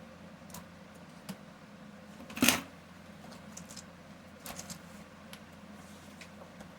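Scattered small clicks and taps from a computer keyboard being worked on for repair, with one louder, brief rasping clatter about two and a half seconds in and a few quick clicks a couple of seconds later.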